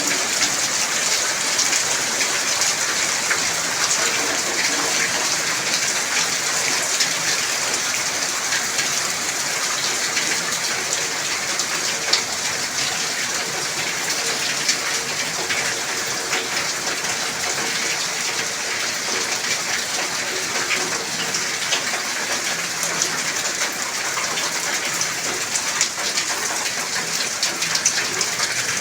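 Heavy rain falling steadily, a dense even hiss with countless small drop ticks.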